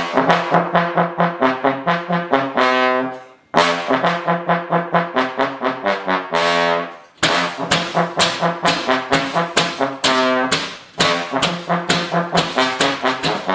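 Trombone playing a repeated riff of short, punchy notes, about four a second, in three phrases. Each phrase ends on a longer note that fades away.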